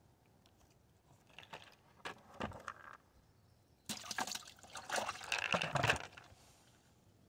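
Water splashing and sloshing in two bouts: a shorter one about a second in, then a louder, longer one about four seconds in.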